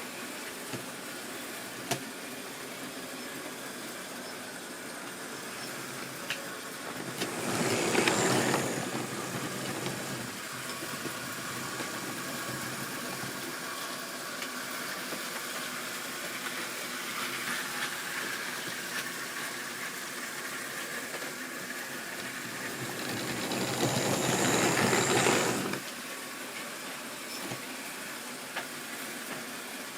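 Model railway train running round the track: a steady motor whirr with the odd click from the wheels, swelling loud twice as it passes close by, about eight seconds in and again some sixteen seconds later.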